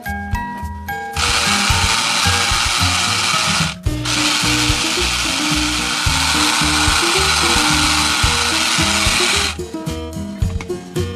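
A toy kitchen appliance runs its loud whirring motor sound, stops for a moment about four seconds in, then whirs again for about five more seconds, over upbeat background music.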